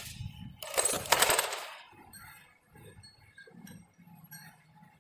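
Manual metal arc (stick) welding electrode striking an arc on mild steel plates with a sharp click, then crackling and hissing for about a second before it stops: a tack weld to hold the plates of a butt joint in place.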